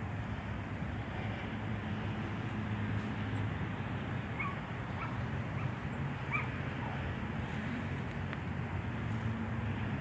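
A handful of short, high animal yelps about halfway through, over a steady low outdoor rumble.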